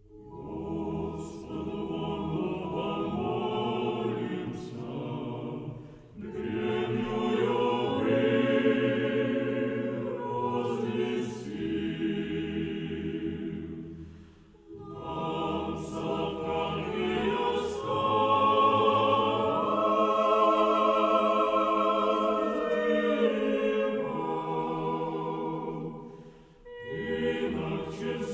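A choir singing a slow piece in long held phrases, breaking off briefly three times between phrases.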